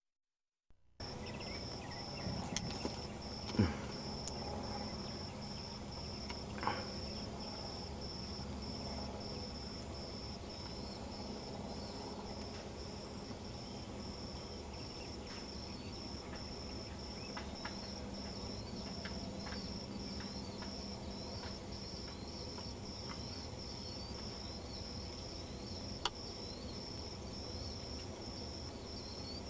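Crickets chirping in a steady, even rhythm, a high pulsed trill about twice a second, starting about a second in. A few sharp knocks stand out, the loudest early on, against a low steady background noise.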